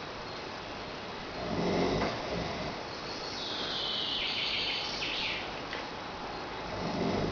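A man snoring in his sleep: a low rasping snore about a second and a half in, then a long hissing breath, and another snore starting near the end.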